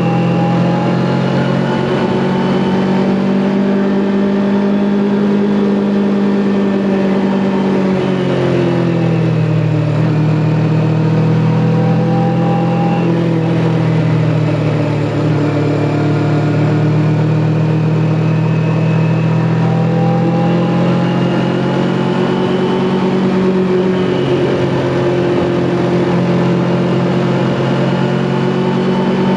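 Kawasaki Ninja 400's parallel-twin engine running while riding. The revs fall about a third of the way in, hold lower for a while, then climb again past two-thirds of the way and stay up.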